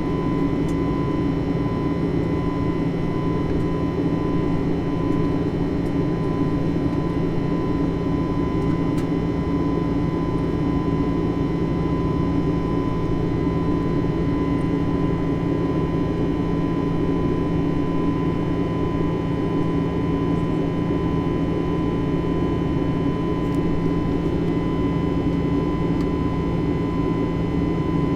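Steady cabin noise of an Airbus A320 airliner in flight: its jet engines and airflow make an even rush with constant hums and a steady whine.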